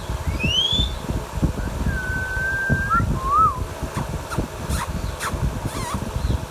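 Indian ringneck parakeet whistling: a quick rising whistle, then a long level whistle that flicks upward at its end about two seconds in, followed by a short warbled note and several brief sharp chirps. A steady low rumble runs underneath.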